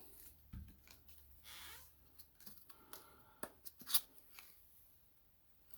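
Trading cards being handled: a brief papery swish about one and a half seconds in, then a few light clicks and taps, the sharpest about four seconds in.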